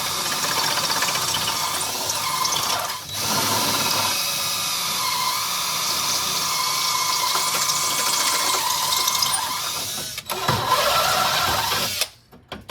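Power drill running under load, boring out the welded points that hold a hood latch in sheet metal, with short letups about 3 and 10 seconds in before it stops near the end.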